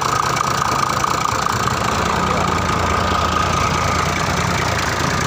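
Mitsubishi 6D14-3A inline-six diesel engine idling steadily, with an even diesel clatter.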